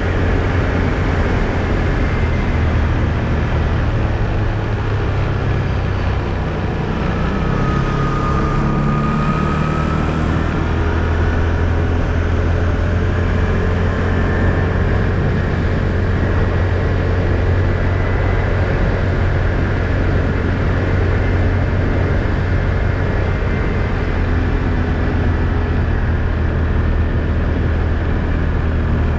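ATV engine running steadily under way, a constant low drone with no breaks.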